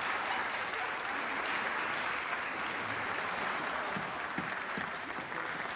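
An audience applauding steadily, a dense wash of many hands clapping that begins as the song's last note ends.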